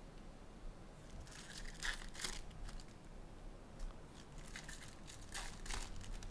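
Trading-card pack wrappers crinkling and tearing as packs are opened by hand, in two flurries of short rustles.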